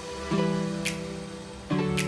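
Background music: strummed acoustic guitar chords, a new chord struck twice, with a light high tick between them.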